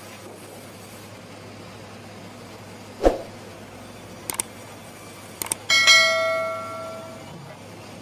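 Subscribe-button overlay sound effect: a thump, then short mouse clicks, then a bell chime that rings out for about a second and a half. A steady low hum lies underneath.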